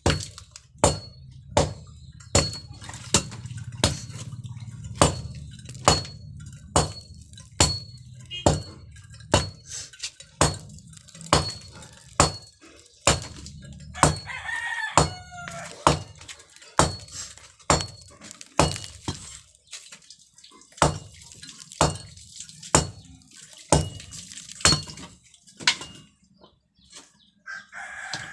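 Steady, evenly spaced hammer blows with a metallic ring, about one and a half a second, from concrete work. Partway through, a rooster crows.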